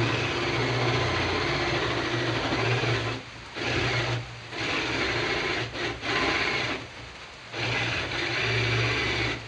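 Electric woodworking power tool running against wood in repeated bursts of one to three seconds, with a low motor hum under a rasping noise and short breaks between passes.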